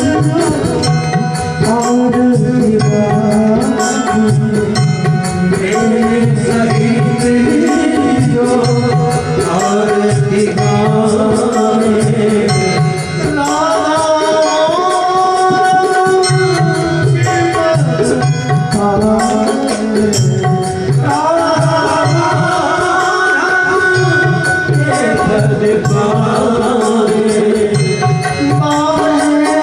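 Indian devotional music: tabla keeps a steady rhythm under a sustained, gliding melody.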